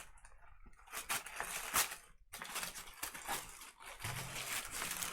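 Paper and packaging rustling and crinkling in short, irregular bursts as the box contents are unpacked by hand, with a few light clicks and knocks, the loudest about two seconds in.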